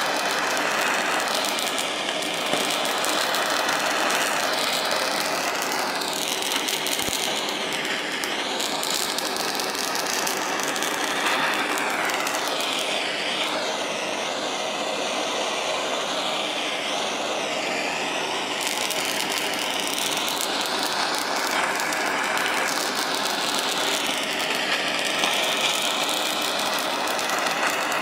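Handheld gas torch's jet flame burning steadily against a bell pepper: a constant hiss whose tone slowly sweeps up and down.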